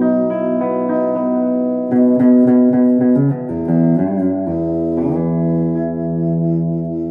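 Telecaster electric guitar played through an amplifier: a few chords changing quickly, then a last chord left ringing from about four and a half seconds in.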